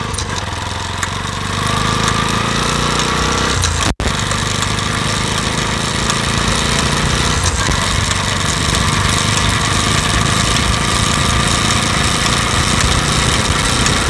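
Bajaj Pulsar NS200's single-cylinder engine and drive chain while riding: the engine picks up revs over the first few seconds, then runs steadily with road noise. The chain makes a 'tak tak' knocking, which the owner traces to a worn front (output) sprocket with thinned teeth.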